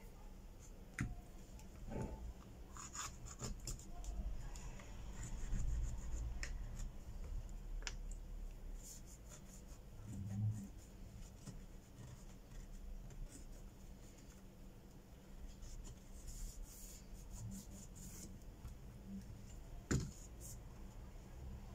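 A cloth rubbing and wiping over a Redmi Note 8's bare mid-frame, with scattered small clicks and taps from handling the phone. A sharper click comes near the end.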